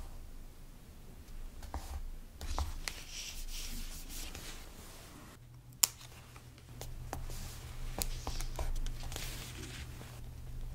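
Metal tweezers handling paper stickers: soft rustles of sticker paper and light clicks as a sticker is pressed onto a diary page and small stickers are picked off a sticker sheet. One sharp click about halfway through.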